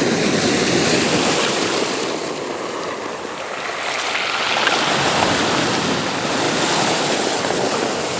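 Sea waves breaking and washing up the beach, with a swell in the surf near the start and another around the middle.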